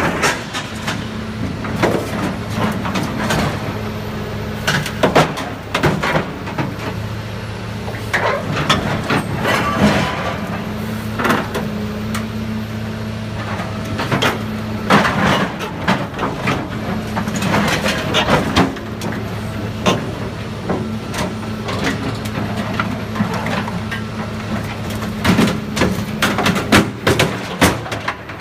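Heavy machinery's engine running steadily under load, with frequent sharp metal clanks and bangs from the bulldozer being torn apart for scrap.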